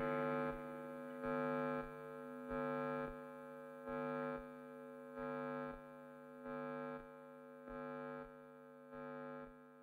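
Soundtrack music: a sustained chord that swells again about every 1.3 seconds, gradually fading out.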